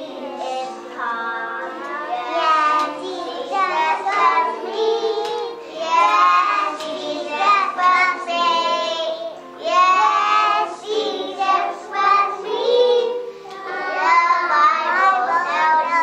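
Young children singing together with musical accompaniment: sung phrases with held, wavering notes.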